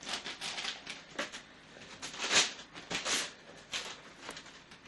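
Paper and cardboard gift packaging rustling and crinkling as it is handled: an irregular run of short crackles, the loudest about two and a half seconds in.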